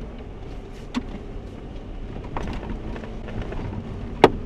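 Jeep driving slowly on a rough dirt trail: a steady low rumble of engine and tyres, broken by sharp knocks about a second in, a second and a half later, and a loudest one near the end, as the vehicle bumps over the uneven ground.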